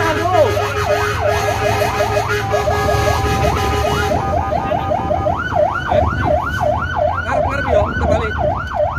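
Electronic emergency-vehicle siren heard from inside the cab of a rescue vehicle on an emergency run to a fire, over the engine's low rumble. It starts in a choppy, rapid pattern with a steady tone under it. About five seconds in it switches to a yelp, rising and falling about twice a second.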